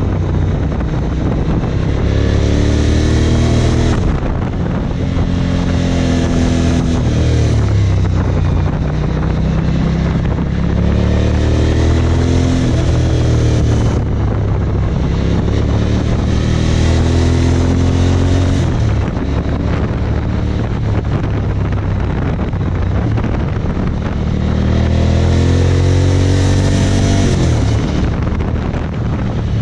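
Suzuki DL1000 V-Strom's V-twin engine pulling through the revs and easing off, the pitch rising and falling several times, with wind rushing over the microphone.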